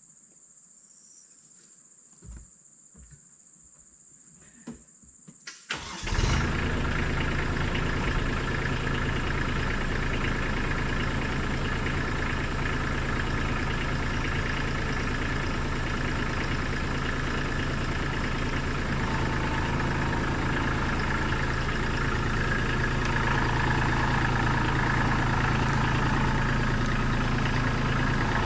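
Kubota LX2610 compact tractor's three-cylinder diesel engine starting about six seconds in, then running steadily; it gets slightly louder in the last few seconds as the tractor moves off.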